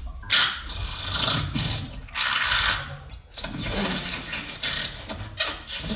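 Rasping, breathy vocal noises made close into a handheld microphone and amplified, in several bursts of one to two seconds each with short breaks between.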